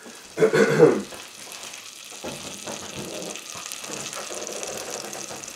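A stick of butter sizzling steadily as it starts to melt in a hot stainless steel saucepan, the pan hot enough that the heat is then turned down. A brief voice-like sound comes about half a second in.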